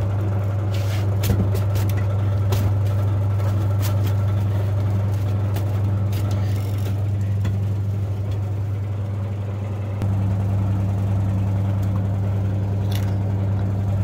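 Electric fan running with a steady low hum. It drops slightly in level and comes back to full strength about ten seconds in, with a few faint clicks about a second in and near the end.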